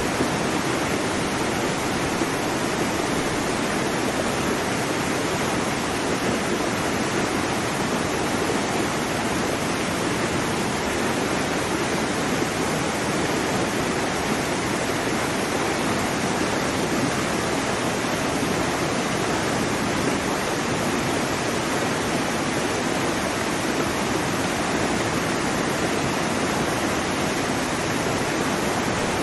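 Waterfall: a steady, unbroken rush of falling water, with no change in level.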